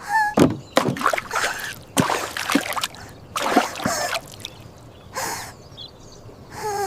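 Cartoon water sound effects: a run of about five splashing, gushing bursts, with a short whimpering cry from a cartoon character at the start and again near the end.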